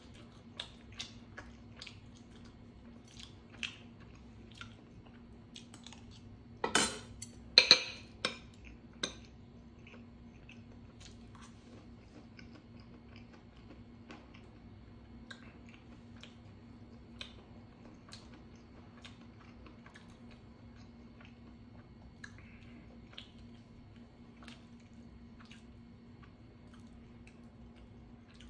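A person chewing food with soft, irregular mouth clicks. About seven seconds in comes a louder cluster of slurping as stew is sipped from a spoon. A faint steady hum runs underneath.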